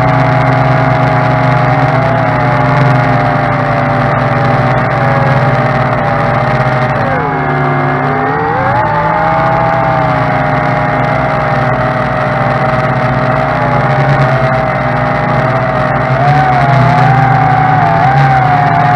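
Tarantula X6 quadcopter's motors and propellers whining loudly and close up, several pitches sounding together. About seven seconds in, the pitch dips sharply as the motors slow, then climbs back as they speed up again.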